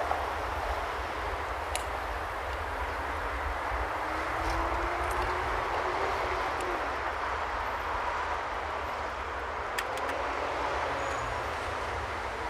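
Steady city street traffic noise with a low rumble; a vehicle's whine slowly rises in pitch a few seconds in and another comes in near the end. A couple of faint clicks.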